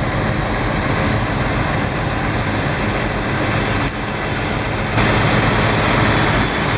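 Semi truck's diesel engine running: a loud, steady low rumble under a broad hiss, with sudden small jumps in level about four and five seconds in.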